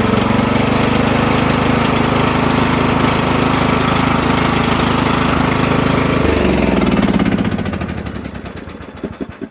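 Troy-Bilt riding mower engine running steadily with what the owner calls a little stutter, freshly fitted with a new carburetor and fuel lines. About six seconds in it is shut off and winds down, fading out over the next few seconds.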